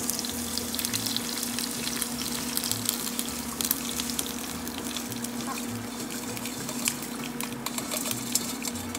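Frying oil and just-fried rice being poured from a stainless steel pot through a wire-mesh strainer into a pan: a steady pouring, trickling sound with a dense, fine crackle of rice grains and oil running through the mesh.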